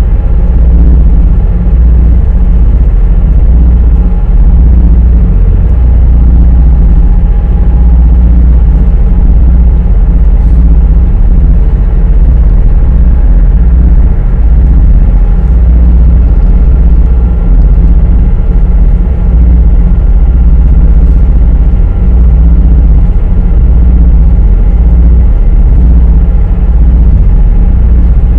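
High-speed passenger ferry's engines and hull running at cruising speed, heard inside the cabin as a loud, steady, deep rumble with a faint engine hum above it.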